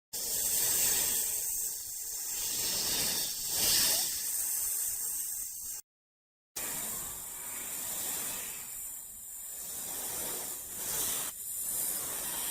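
Cobra hissing in long, drawn-out hisses that swell and fade, broken by a short silence about six seconds in.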